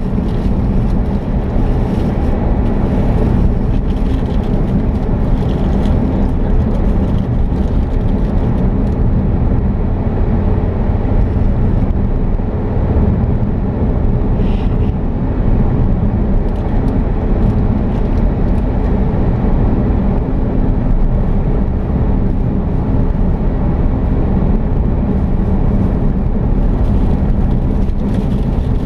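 Car driving at a steady pace: a constant low rumble of engine and road noise.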